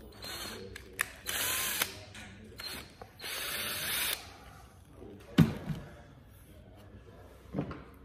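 Cordless drill running in three short bursts, the last and longest about three seconds in, with its bit in a car armrest. Two sharp knocks follow, the first the loudest sound here.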